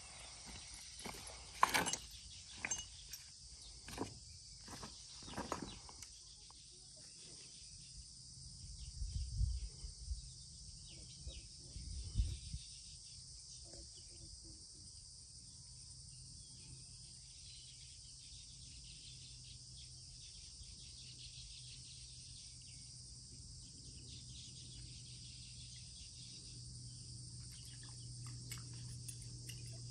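Steady high chirring of insects. A string of sharp clicks and knocks comes in the first six seconds, low thuds follow around nine and twelve seconds in, and a faint low hum grows toward the end.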